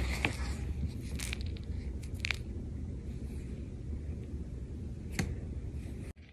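Close-up contact noise of a cat's fur and face pressing against a phone's microphone: a steady low rumble with a few sharp clicks and scrapes, cutting off abruptly near the end.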